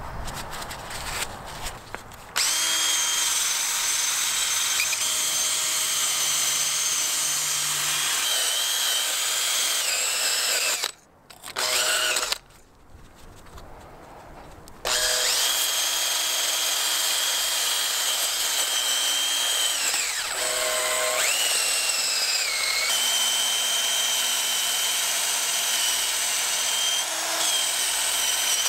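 After a couple of seconds of a rag rubbing on the engine block, a Makita cordless drill spins a wire wheel brush against a Honda B-series engine block, scrubbing off grime. The drill whines steadily with its speed shifting now and then. It stops briefly about ten seconds in, pauses for a few seconds a little later, then runs again to the end.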